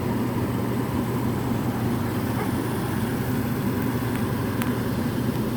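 Furnace running with its burners lit and its replacement 3/4-horsepower PSC blower motor, driven through a QwikSwap V3 module, running at high speed: a steady hum.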